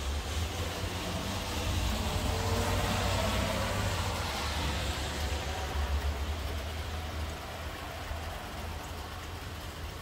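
Thunder rumbling long and deep, swelling then dying away about seven seconds in, over steady rain.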